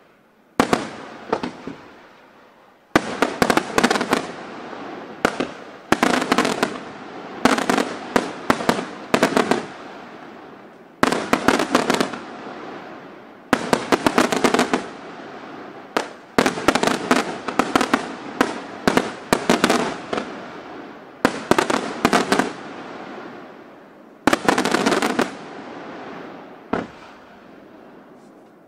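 Aerial fireworks display: volleys of shells bursting in quick clusters of sharp bangs, a new cluster about every two seconds, each dying away before the next.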